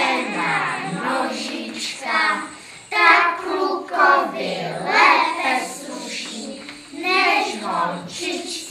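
A group of young children singing a song together, in phrases separated by short breaths.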